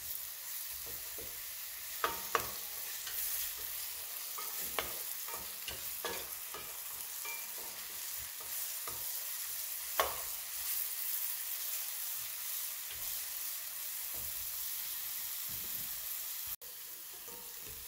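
Chopped onion and garlic sizzling in oil in a coated frying pan while a wooden spoon stirs through them, with occasional clicks of the spoon against the pan. The sizzle cuts out for an instant near the end and comes back a little quieter.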